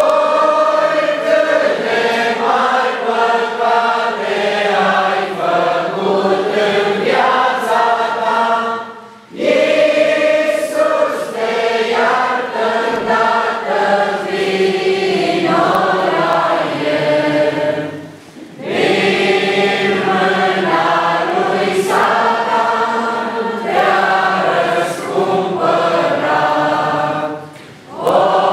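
Congregation singing a hymn in Romanian together, in sung lines of about nine seconds each with a short breath between lines.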